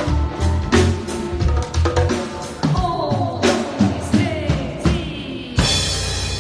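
Live pop band at a soundcheck, a drum kit beating a steady rhythm under bass and a woman singing into a microphone. Near the end the sound changes suddenly to a denser, steady wash of music.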